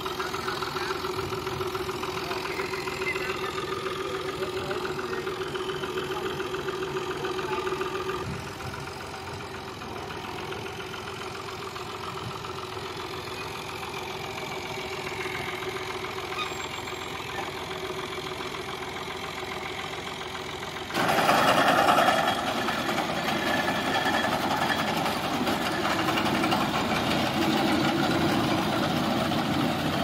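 Fiat 480 tractor's diesel engine running steadily, driving a front-mounted wheat reaper. About two-thirds of the way through it turns suddenly louder and noisier as the reaper cuts into the standing wheat.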